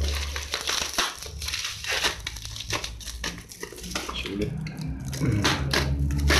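Taped plastic parcel wrapping crinkling and crackling in many short bursts as it is handled and slit open with a utility knife, over a low rumble that drops away in the middle and comes back near the end.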